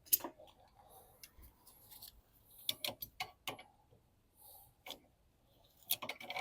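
Scattered sharp metallic clicks and clinks, singly and in small clusters, from hand tools and brake parts (slider pins, shims, caliper) being handled during rear brake reassembly.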